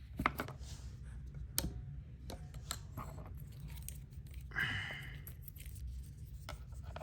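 Hands handling a wristwatch close to the microphone: scattered small clicks and light scrapes, with a short rustle about four and a half seconds in, over a steady low hum.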